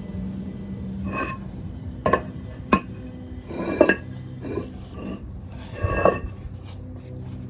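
Hard concrete pavers clinking and knocking against each other as they are handled and set: about six sharp, ringing strikes spaced irregularly, over a steady low hum.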